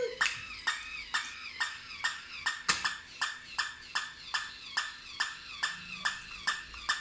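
Battery-operated barking dog toy sounding in a steady, even series of short sharp sounds, about three a second, with one louder strike nearly three seconds in.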